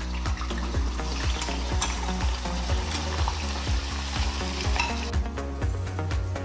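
Paneer cubes shallow-frying in hot oil in a stainless steel pan, the oil sizzling and bubbling as a wire-mesh spider strainer stirs them. The sizzle is loudest from about a second in until about five seconds in.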